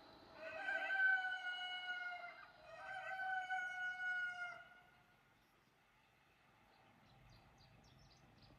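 A rooster crowing: two long, drawn-out notes of one crow lasting about four seconds in all, followed near the end by a few faint high chirps.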